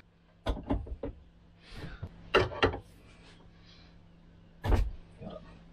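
Large adjustable wrench knocking and clanking against the hot water cylinder's heating element as it is fitted on and pulled to undo the element: a string of separate knocks, the loudest near the end.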